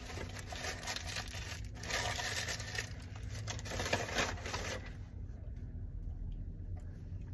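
Paper sandwich wrapper and brown paper takeout bag crinkling and rustling as they are handled, dying down about five seconds in.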